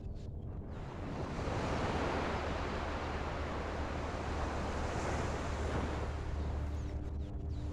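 Ocean water surging and washing along the shore, rising and then easing off, with wind on the microphone and a steady low hum underneath.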